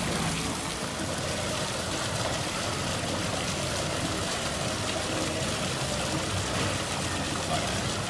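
Waterfall pouring over rockwork: a steady, unbroken rush of splashing water.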